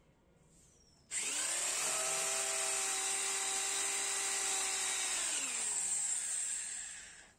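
Corded electric drill starting about a second in, spinning up and running steadily as it bores a hole through the base of an earthen clay cup, then winding down with falling pitch near the end.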